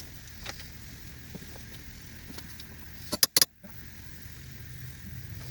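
Sharp metallic clicks of hand tools working on a car's rear axle hub nut: a few scattered clicks, then a loud cluster of three a little past halfway, over a low steady hum.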